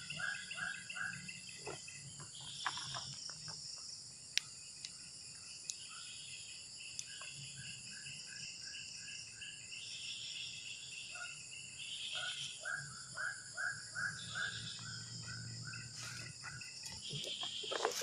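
Evening pond-side ambience: a steady high drone of insects, with several runs of an animal's evenly repeated calls at about three a second, and a few faint clicks.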